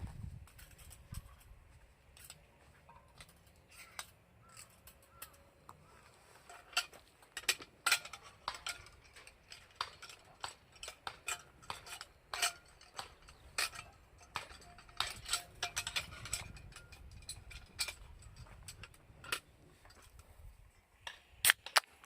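Scattered sharp clicks and light clatters at an irregular pace, the loudest about 8 s in and again near the end.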